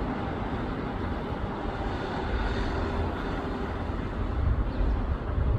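Engines of an airliner on its approach to land, heard from the ground as a steady noise with a faint whine.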